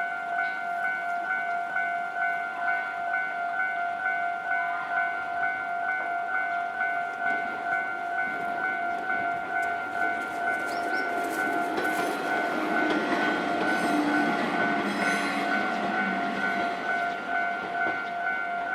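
Japanese level-crossing warning alarm ringing in quick, even repeats of a steady tone. A train passes over the crossing in the middle: its rumble swells from about eight seconds in, its wheels click, and it fades again before the end.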